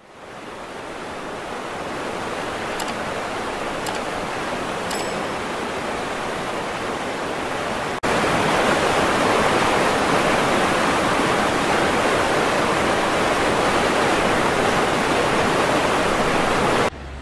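Fast-flowing floodwater rushing in a swollen river: a steady, even rush of water that fades in, jumps louder after a cut about eight seconds in, and stops abruptly just before the end.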